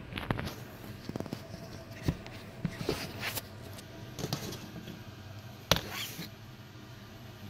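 Handling noise from an iPhone box and its contents: a scatter of light clicks, taps and short rustles from hands moving the paperboard box and phone, the sharpest click a little before six seconds in.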